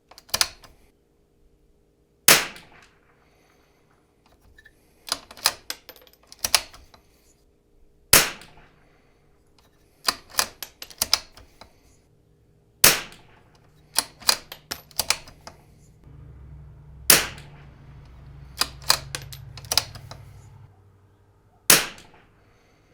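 Five .22LR rifle shots from a Zermatt RimX bolt-action rifle firing RWS R50, spaced about four to six seconds apart. Between the shots come quick clusters of small metallic clicks as the bolt is worked to chamber the next round.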